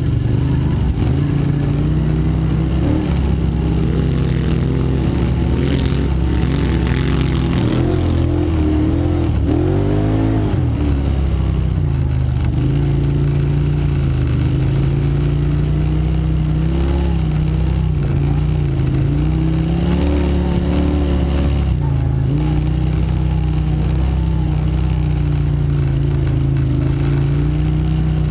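ATV engine heard close up from on board, running under changing throttle so its pitch keeps rising and falling, with a quick rev up and back down about ten seconds in.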